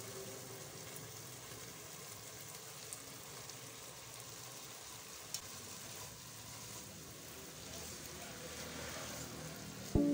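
Chicken and peas frying in a wok with a steady, quiet sizzle while they are stirred, chopped carrots going in partway through, with a couple of faint utensil clicks.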